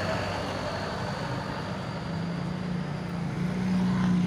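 Diesel engine of a light cargo truck running as it pulls away, its pitch rising in the second half, with a motorcycle passing close near the end when the sound is loudest.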